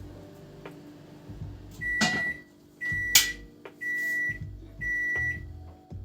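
Microwave oven beeping four times, about once a second, the signal that its cycle has finished. A couple of sharp knocks and small clicks come in around the beeps, the loudest shortly after the second beep.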